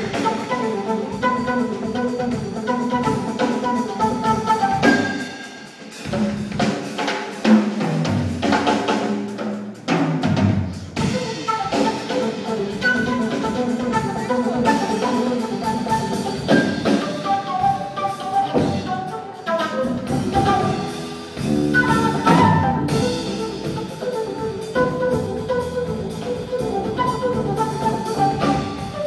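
Live flamenco-jazz trio playing: a flute melody over drum kit and plucked strings, with frequent drum strikes.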